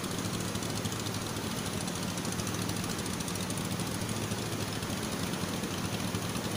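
An engine running steadily at one speed, a low even hum.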